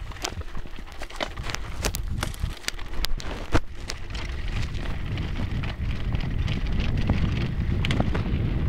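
Mountain bike riding over a rough dirt trail: scattered crackles and rattles of gravel under the tyres, with wind buffeting the microphone. The wind grows louder in the second half.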